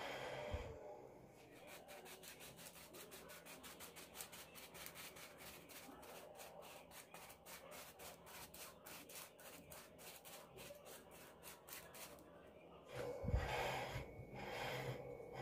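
Powdered sugar being sifted through a small hand sieve: a quick, even run of soft taps and rubbing of the mesh, several a second, which stops about twelve seconds in. A louder thump and handling sounds follow near the end.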